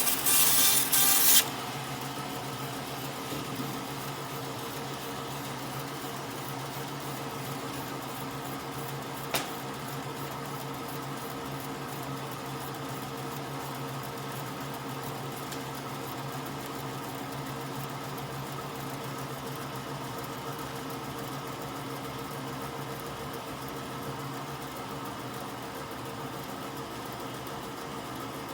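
A tool rasps on wood for about the first second and a half. A small motor then hums steadily, with one sharp click about nine seconds in.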